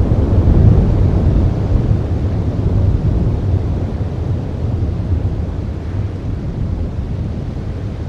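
Wind buffeting the outdoor camera microphone: a loud, deep rumble that surges in gusts, strongest in the first few seconds and easing a little later.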